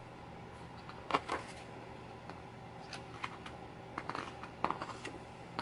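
Pages of a printed photobook being turned by hand: a few short paper rustles and flips, the loudest about a second in, over a faint steady hum.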